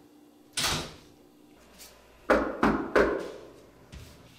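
Fist knocking on an apartment door: three loud, quick knocks about two seconds in, after a single thump about half a second in.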